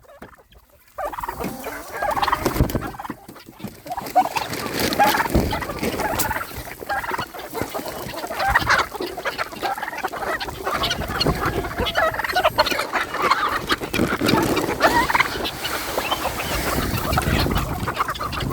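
A free-ranging flock of chickens clucking and calling, with many short, overlapping calls from the birds. The calls start about a second in, after a brief quiet moment.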